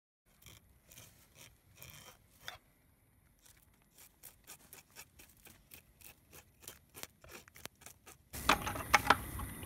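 Scales being scraped off a dusky flathead on a wooden board, in quick rasping strokes that speed up to about three a second. Near the end a much louder, denser noise takes over.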